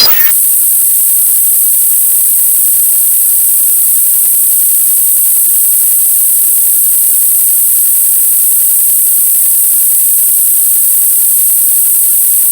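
Loud, steady electronic static hiss, strongest in the highest pitches, cutting in abruptly as a blast of distorted music stops.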